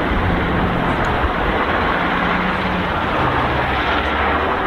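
Shacman 8x4 dump truck driving past, its diesel engine running steadily with tyre and road noise; the engine note shifts in pitch a couple of times.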